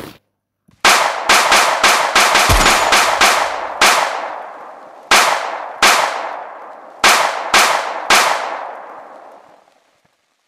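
Gunfire sound effects: a rapid volley of about a dozen shots, then five single shots spaced out. Each shot rings out with a long, echoing tail.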